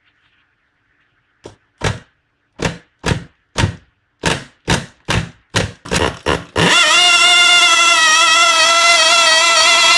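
Tiny two-stroke nitro model engine being started: about a dozen short bursts come faster and faster, then about seven seconds in it catches and runs steadily at high speed with a loud, high-pitched buzz.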